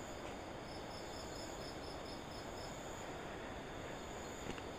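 Crickets chirping in a night forest: a steady high-pitched insect trill, with one insect pulsing about five times a second through the first half.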